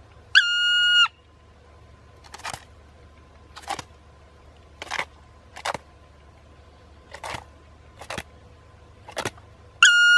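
A flat, high beeping tone lasting under a second, dipping slightly in pitch as it cuts off, heard twice about nine seconds apart, with faint short knocks at uneven intervals in between.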